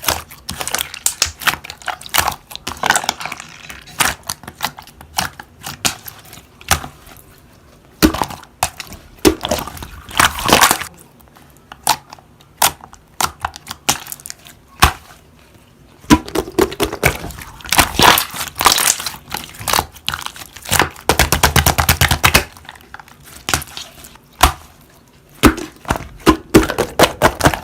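Slime being squeezed and poked by hand, giving irregular sharp clicks and pops, with a fast run of clicks about three quarters of the way through.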